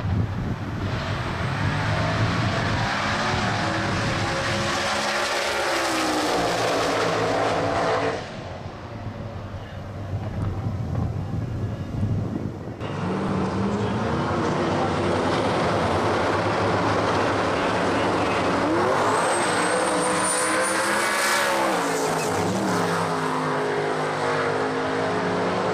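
Ford Cortina outlaw radial drag car's engine running loud at high revs, its pitch rising and falling. It drops away for a few seconds about eight seconds in, then comes back loud, with further rises and falls in pitch.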